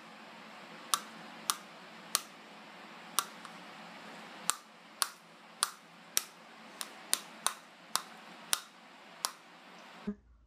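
A bulldog's teeth snapping shut as it bites at a rubber toy, a run of sharp clicks coming unevenly about every half second over a steady hiss. The clicks stop suddenly near the end.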